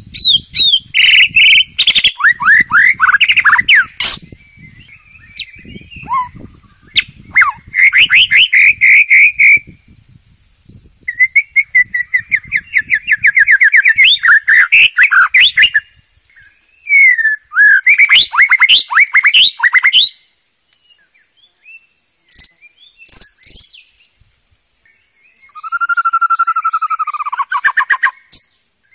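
White-rumped shama singing in loud, varied phrases of rapid whistled and trilled notes, each a few seconds long, with short pauses between them; near the end a phrase drops to a lower, steadier run of notes.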